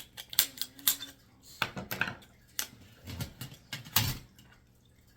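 Metal parts of a DirecTV satellite receiver, including aluminum pieces, clinking and knocking together as it is taken apart by hand. There are about a dozen sharp, irregular clicks and clanks, and the loudest come about a second in and near four seconds.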